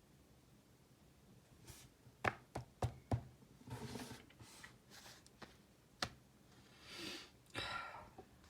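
Close handling sounds: a quick run of about four light knocks or taps, a single tap a few seconds later, and rustling and shuffling between them and near the end.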